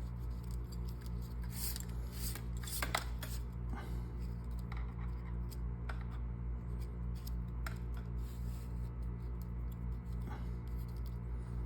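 String being drawn under and over the strands of a braided side button knot: scattered short scrapes, rustles and clicks as it slides through, over a steady low hum.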